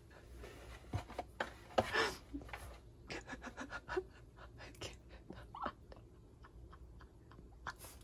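Golden retriever puppy shifting and scratching about inside a wooden toy box: soft scattered rustles and clicks, with a few short faint squeaky sounds.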